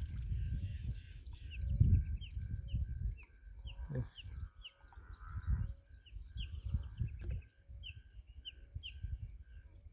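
Birds calling outdoors: short chirps repeated about twice a second over a steady high insect hum, with uneven low rumbling noise on the microphone.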